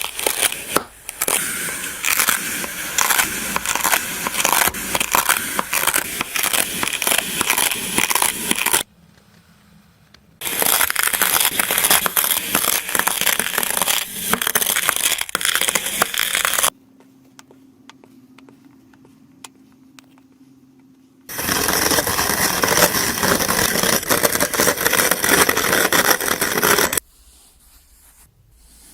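Kinetic sand being crushed and broken apart, a dense crackling in three long spells with short quiet pauses between them.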